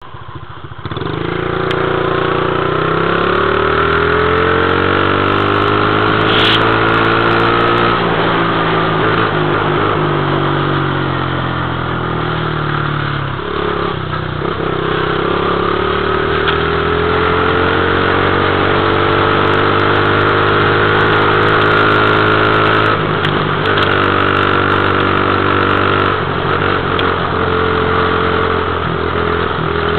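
Dirt bike engine running under way, its pitch rising and falling with the throttle, with a brief dip about halfway through and several quick steps up and down near the end.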